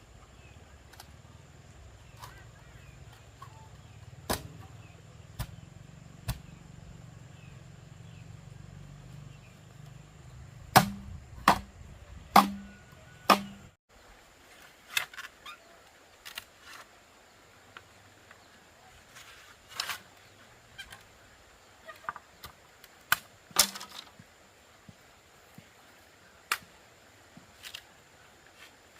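Scattered sharp clicks and knocks, a few of them ringing briefly, with a cluster of four louder knocks about halfway through.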